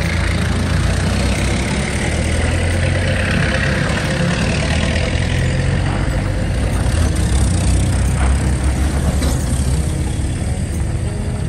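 Vintage military Jeep engines running at low speed as the Jeeps pull past one after another, a steady low engine sound.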